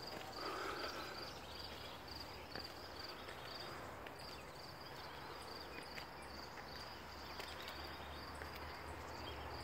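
An insect chirping steadily in short, high, evenly spaced chirps, about three a second, over a faint low rumble.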